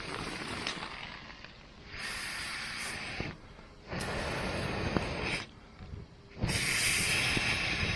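Campfire being blown on in four breathy, hissing blasts, each a second or so long with short pauses between, fanning the flames, with a few sharp crackles from the burning wood.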